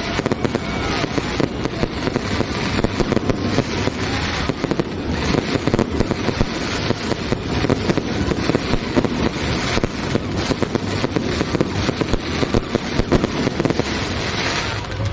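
Fireworks display going off: a dense, unbroken run of bangs and crackling throughout, with no pause.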